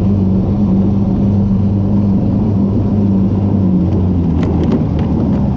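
Engine of a tracked motor-pusher (motor-dog) running steadily under load as it drives along a snow trail. Its note drops slightly about four seconds in, and a few light ticks sound near the end.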